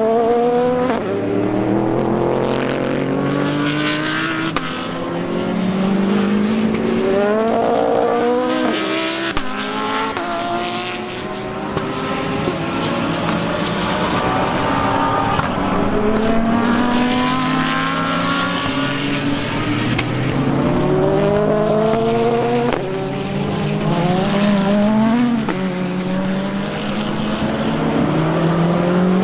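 Several race car engines on track at once, overlapping one another. Their pitch climbs and breaks off at each upshift, then drops as cars brake and downshift for corners, with car after car coming through.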